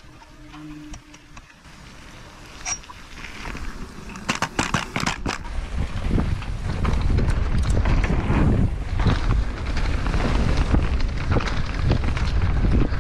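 Quiet at first, then from about four seconds in a downhill mountain bike's tyres and frame rumble and rattle over a dirt forest trail at speed, growing loud, with wind buffeting the helmet-mounted camera's microphone.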